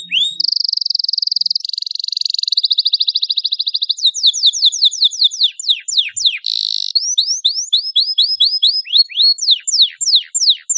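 Domestic canary singing a long, unbroken song: fast rolling trills alternating with runs of quick notes that each fall steeply in pitch, one phrase following straight on from the next.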